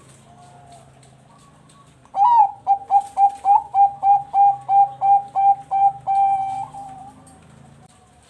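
Zebra dove (Bangkok-line perkutut) singing. About two seconds in comes a loud run of quick, evenly spaced staccato coos, about three a second, ending in one longer held coo that fades away.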